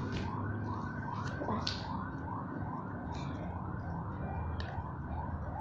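A siren sounding in a fast yelp: a short rising wail repeated about two or three times a second.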